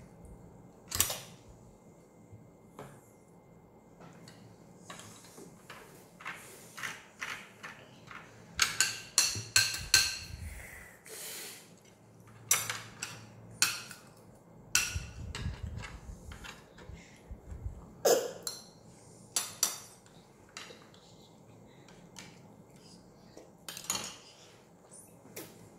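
Metal spoons and forks clinking and scraping against plates and bowls at the table as the children eat, in irregular strokes with a quick run of clinks about a third of the way in.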